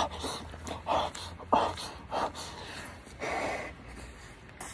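A man chewing a mouthful of hot food and huffing breathy puffs of air through his open mouth to cool it. Several short puffs come at about one a second, then a longer exhale about three seconds in.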